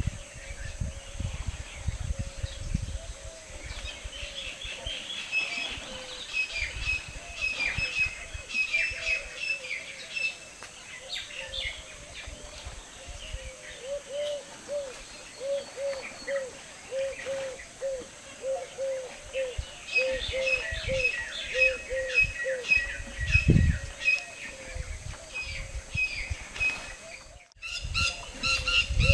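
Wild birds calling: many short high chirps and twitters, and from about halfway through a run of quick low hooting notes, about two a second, lasting some ten seconds.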